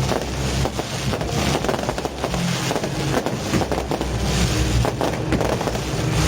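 Fireworks going off in rapid succession: many sharp bangs and crackles over a low, steady rumble.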